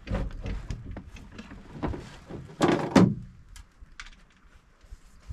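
Knocks and thuds from handling gear aboard a small fishing boat, the loudest a heavy thunk about three seconds in, over a low rumble that fades out about two seconds in.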